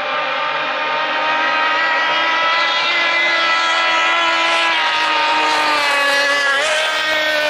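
Racing outboard motor on a small hydroplane running flat out as the boat speeds past: a steady, high-pitched engine note that dips briefly in pitch near the end.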